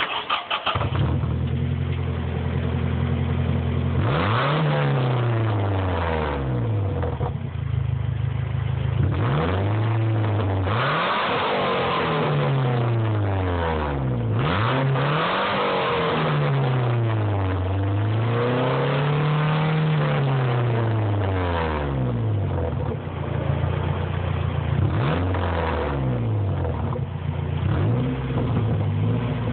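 Nissan 240SX engine through a freshly installed Coffin custom muffler, idling and then revved again and again, each rev rising and falling back to idle, before settling to a steady idle near the end.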